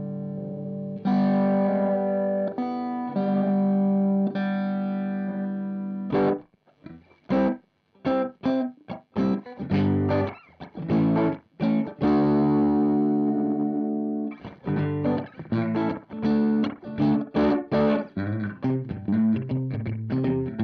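Electric guitar, a Strat copy, played through the MiMiDi mini delay pedal. Held chords ring for the first six seconds, then come short, choppy chord stabs with brief silences between them, a longer held chord in the middle, and more stabs.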